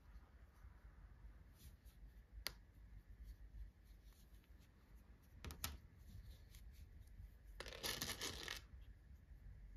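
Quiet handling of a small crocheted piece with a few faint clicks, then about a second of rattling as a hand rummages through plastic safety eyes in a plastic compartment box, a little past the middle.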